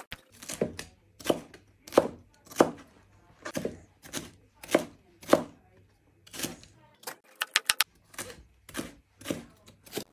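Chef's knife slicing peppers on a plastic cutting board: regular knocks of the blade striking the board, about two a second, with a quick run of short taps about three-quarters of the way through.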